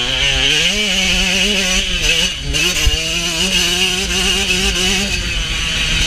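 KTM 125 SX two-stroke motocross bike engine running hard under throttle. Its pitch climbs in the first second, holds high with a couple of brief dips, then falls about five seconds in as the throttle is rolled off.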